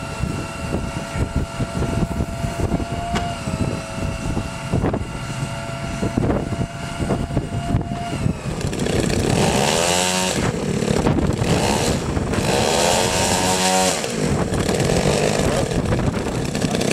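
Model aircraft engines on the twin-engine RC Catalina being run up on a test stand. A steady running note for about eight seconds, then louder and rougher as they are opened up, with the pitch swinging up and down twice.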